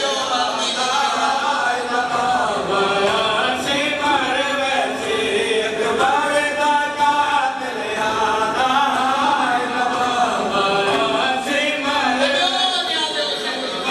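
Noha, a Shia mourning lament, sung by a male reciter, with a crowd of men chanting along in unison. The voices come through loudspeakers.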